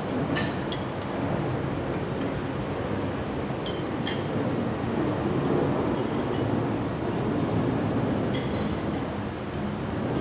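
Metal forks, knives and pizza servers clinking and scraping on plates and pizza pans as people eat, a scattered clink every second or so over a steady background rumble of room noise.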